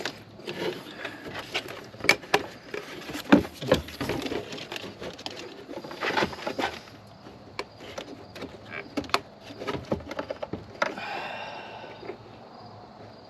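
Irregular clicks, knocks and rustling of hands handling plastic car parts and hose during a washer hose replacement, with a brief squeak about eleven seconds in.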